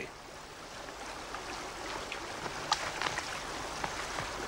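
Shallow stream rushing over rocks, a steady hiss of water, with a few faint clicks around the middle.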